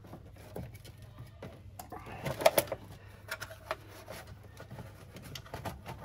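Hands working plastic and rubber parts loose on top of a Mercedes M117 V8 engine: scattered clicks, knocks and rubbing, with the loudest cluster of knocks about two and a half seconds in.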